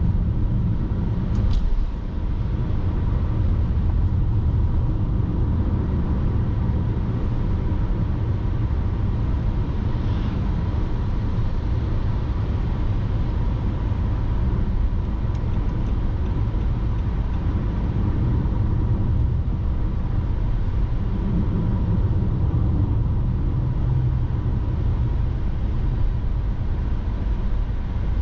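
Car driving, recorded by a dashcam inside the cabin: a steady low rumble of tyres on the road and engine, with a faint steady high tone.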